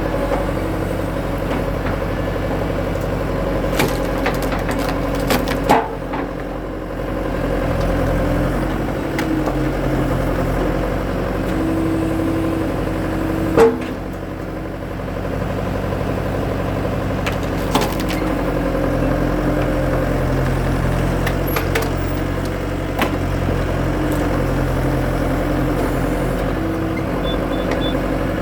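Skid steer engine running steadily while a splitter attachment works through big firewood rounds, with a few sharp cracks of wood splitting, the loudest about halfway through.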